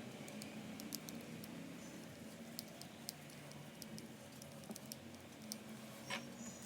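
Faint, scattered light clicks and taps of small model parts being handled during assembly, with one slightly sharper tap about six seconds in, over a steady low hum.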